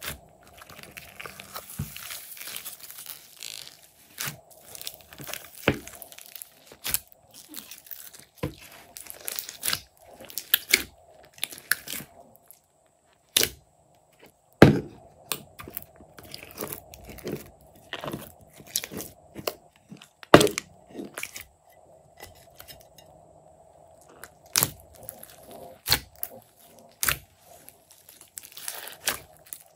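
Hands squishing and kneading clear slime mixed with modelling clay, giving irregular sticky pops, clicks and crackles, with a short silent break about halfway.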